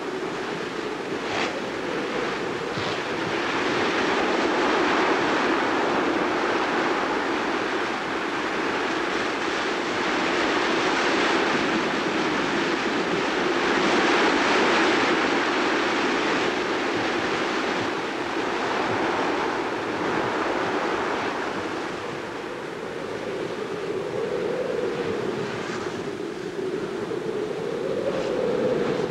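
Storm wind and surf: a steady rushing noise of gusting wind and breaking waves, with a low tone in the wind that wavers up and down near the end.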